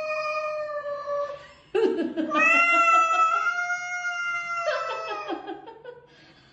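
A cat giving two long, drawn-out yowling meows, the second starting about two seconds in and fading out near the end.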